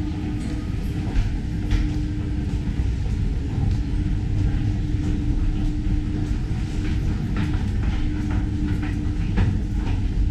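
Metro station ambience: a steady low rumble with a constant hum, and footsteps going down stairs.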